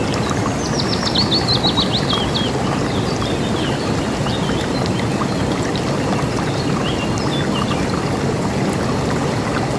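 River water rushing steadily. A bird sings a fast trill of rapid notes falling in pitch, starting about half a second in and lasting about two seconds, followed by a few scattered short calls.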